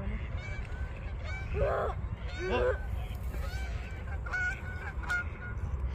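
A flock of geese honking as they fly overhead: many short overlapping honks throughout, with a couple of louder ones about two seconds in.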